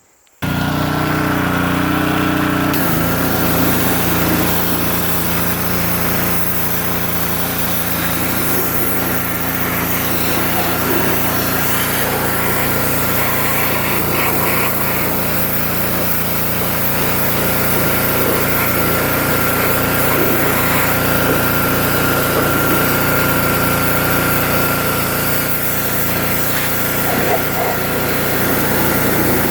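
Gas-engine pressure washer running steadily. It starts abruptly just after the start, and its engine note shifts about three seconds in.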